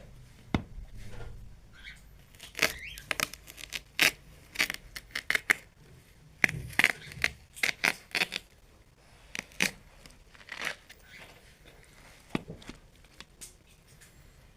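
Ripe watermelon cracking: a run of sharp, irregular snaps and tearing crackles, thickest in the middle and thinning out toward the end.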